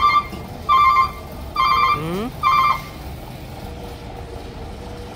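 An electronic beeper sounds four short, evenly spaced beeps about a second apart over a steady low vehicle-engine rumble, then stops; a faint steady tone follows near the end.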